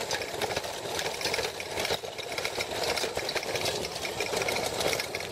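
Diamondback Recoil e-bike with a Magic Pie hub motor rattling rapidly as it rides over bumpy dirt trail: the bike and its steel front fork clatter with every jolt, over a steady tyre and rolling noise.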